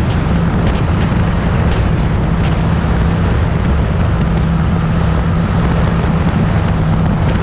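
Racing car engine of a 1960s prototype running loud at a steady, unchanging pitch, with a deep rumble beneath it.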